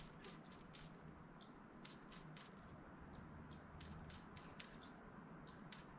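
Near silence: faint ambience over the water with scattered small ticks and clicks, several a second, at an uneven pace.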